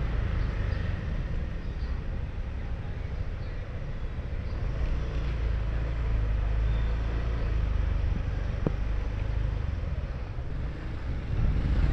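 Steady low rumble of street traffic and motorbike engine noise, with one short, sharp sound a little past eight seconds in.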